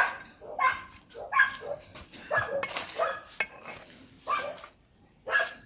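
A dog barking repeatedly, short barks at uneven intervals, roughly one a second.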